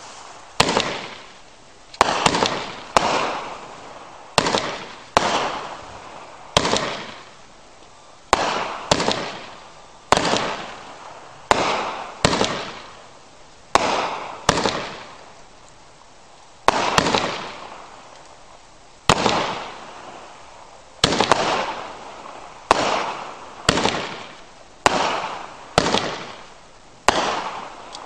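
Consumer fireworks finale cake firing shot after shot: a sharp bang roughly every second at uneven spacing, each trailing off in a fading hiss.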